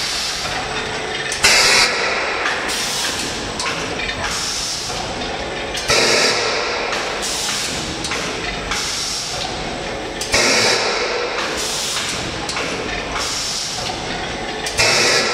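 Pulp egg-tray forming machine running through its cycle: a steady mechanical clatter, broken about every four and a half seconds by a sudden loud hiss of air, four times.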